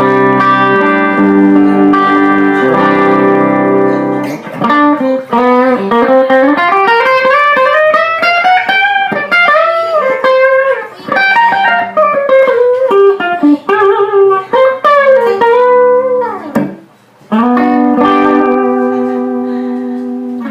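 Fender Squier electric guitar played: held chords at first, then a single-note lead line with string bends and vibrato, and finally a held chord that slowly fades.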